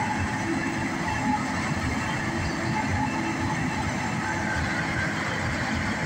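Claas self-propelled forage harvester running steadily under load, chopping standing corn and blowing silage out its spout, with a tractor running alongside. A continuous mechanical drone with faint steady whining tones over a low rumble.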